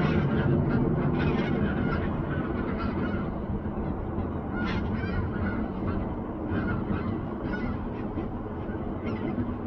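A flock of wild geese calling, many short calls overlapping, over a steady low rumble.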